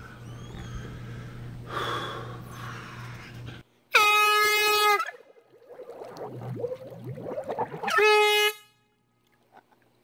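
Handheld canned air horn blown underwater. A clean, steady horn blast comes about four seconds in, followed by a gurgly, warbling stretch, then a second short blast near the end that cuts off abruptly.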